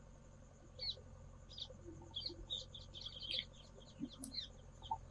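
Small birds chirping: short, high chirps scattered throughout, busiest about halfway through, over a low steady background noise.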